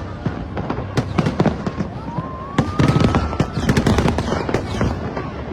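Aerial fireworks going off in quick succession, a dense run of sharp cracks and bangs, with a single rising whistle about two seconds in.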